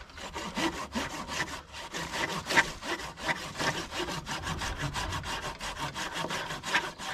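Hand pruning saw cutting through a live tree stem, in quick, even back-and-forth strokes, several a second, rasping through the wood.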